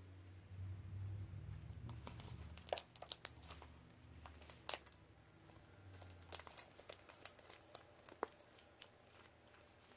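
Slime being squished and stretched by hand, giving off scattered sharp pops and crackles. A low hum runs under it and fades after about six seconds.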